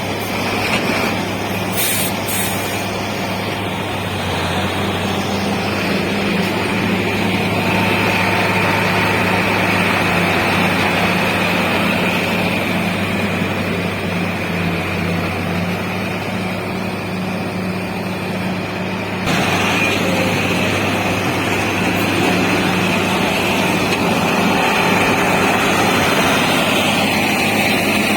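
Heavy diesel machinery engines running steadily under load, with a low hum and a higher whine above it. The sound steps up abruptly in loudness about 19 seconds in.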